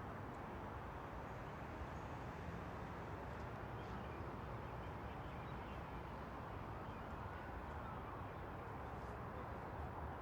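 Quiet suburban park ambience: a steady low hum of distant city traffic, with faint bird chirps now and then.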